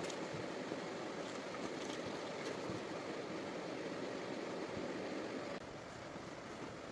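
Steady rushing noise of flowing river water, with a few faint ticks. The level drops a step about five and a half seconds in.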